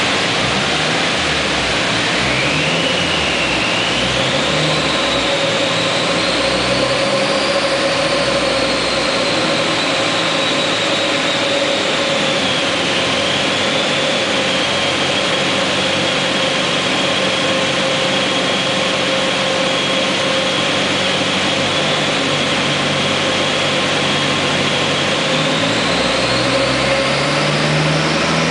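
Toyota Celica TA22's turbocharged 3T-GTE four-cylinder engine running under load on a chassis dyno. A high whine climbs over the first several seconds, holds steady through the middle, then climbs again near the end.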